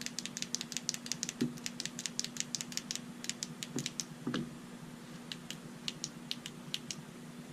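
Rapid clicking of a FOURSEVENS Preon P2 penlight's rear push button, several clicks a second, thinning to scattered single clicks about three seconds in, with a few soft handling knocks. The light is being switched quickly off and on to step through its programming configurations.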